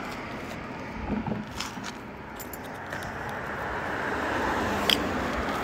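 Road traffic passing on the bridge, the noise of an approaching car swelling toward the end. Over it come a few light metallic clicks and clinks as the magnet and its finds are handled, with one sharper click near the end.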